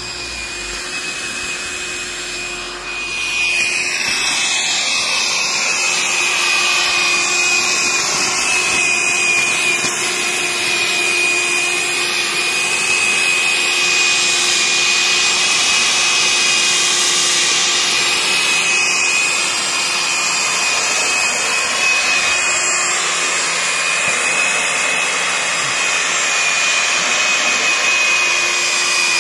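Hecht 745 electric garden tiller running, its motor and worm gearbox giving a steady high whine over the rasp of the tines churning loose soil; it gets louder about three seconds in and then holds steady.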